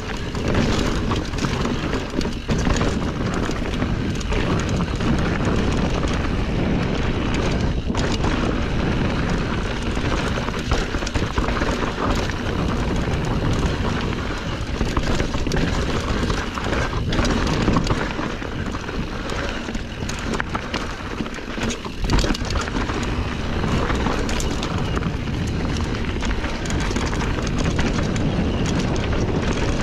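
Norco Sight full-suspension mountain bike riding fast down a rocky dirt trail: tyres crunching over rocks and dirt and the bike rattling over bumps, with wind rushing on the microphone. Sharp knocks come now and then from hits on rocks, the loudest about 22 seconds in.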